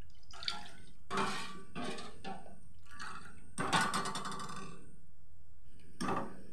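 Steel spoon stirring milk in a steel pan, scraping around the pan in a series of irregular strokes.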